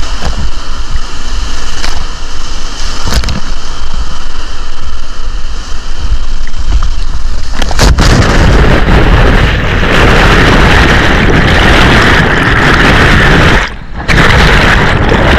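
Loud, steady rushing of whitewater on an action camera's microphone, growing louder about halfway through, with a brief break shortly before the end.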